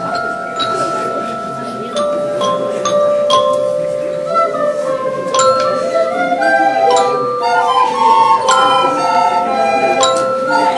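A student ensemble playing on mallet instruments and recorder: struck notes ring over long held tones, and about halfway through the melody moves into quicker runs of notes.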